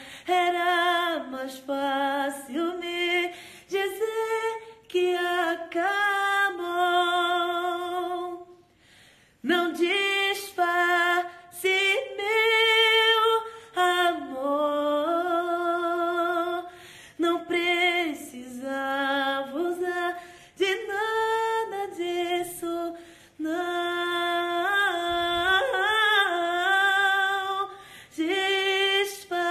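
A woman singing solo with no accompaniment, a slow song of long held notes that waver with vibrato; she breaks off briefly about nine seconds in, then carries on.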